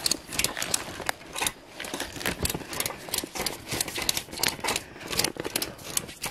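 Ratchet strap being cranked tight to hold down a carport tarp, its pawl clicking in quick, slightly uneven runs of about three or four clicks a second.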